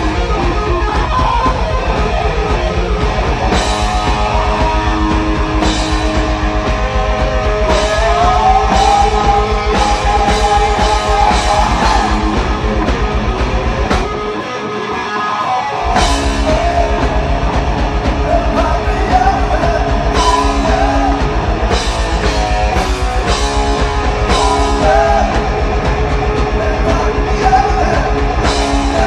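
Heavy metal band playing live, with distorted electric guitars, a fast, steady kick drum and a singing voice. About halfway through, the drums and low end drop out for a couple of seconds, then the full band comes back in.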